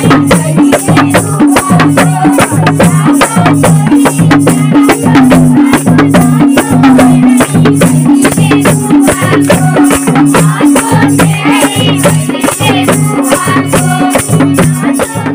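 Live Nepali folk music: a madal hand drum plays a fast, steady beat with a high rattle on each stroke, under a held low tone, and voices sing along, most clearly in the last few seconds.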